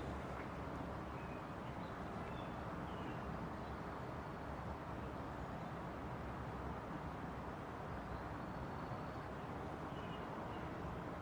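Steady outdoor background rumble, like distant traffic, with a few faint, short, high bird chirps about one to three seconds in and again near the end.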